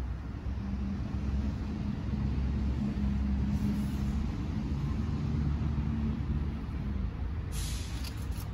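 Low engine rumble of a passing road vehicle, swelling and then fading, with a short hiss near the end.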